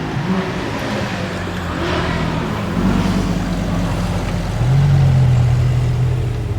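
Sports car engine idling through a loud exhaust, blipped in short revs, then held at a higher, steady rev for a couple of seconds near the end before dropping back.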